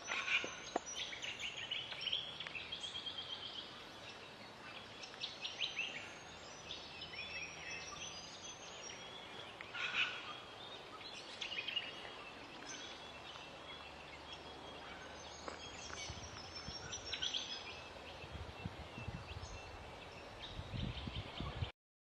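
Small songbirds chirping and singing in rapid high trills, in repeated bursts over a steady outdoor hiss, with some low rumbling near the end; the sound cuts off abruptly just before the end.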